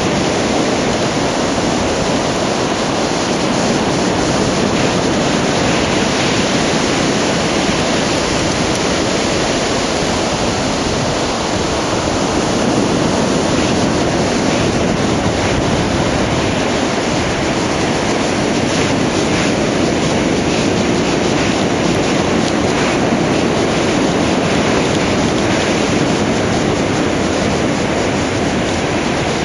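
Ocean surf breaking on the shore: a loud, steady rush of wave noise with no separate crashes standing out.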